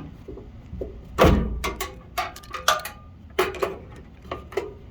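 Wire connectors being pulled off the terminals of a furnace blower motor's capacitor: a string of sharp metallic clicks and knocks, the loudest about a second in.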